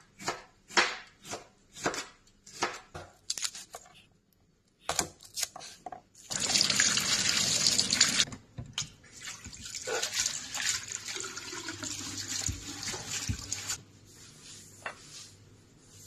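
Knife chopping vegetables on a cutting board, steady strokes a few per second, stopping about four seconds in. About six seconds in, a kitchen tap starts running into a stainless steel sink as hands are rinsed under it, and it is turned off near the end.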